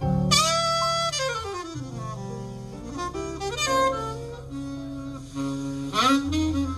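Small-group jazz ballad: an alto saxophone plays a slow melody with a wavering vibrato, loud notes at the start and again near the end, over a double bass line. The music is recorded on an iPhone.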